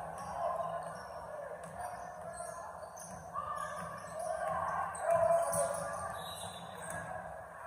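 Basketball game sounds in a gymnasium: a ball bouncing on the hardwood and short squeaks, most likely sneakers, some sliding in pitch, the loudest about five seconds in, all echoing in the hall.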